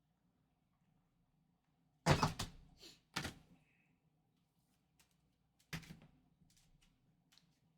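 Trading cards and packs being handled on a table: a few short knocks and rustles, the loudest about two seconds in, another a second later and one near six seconds, with light ticks between.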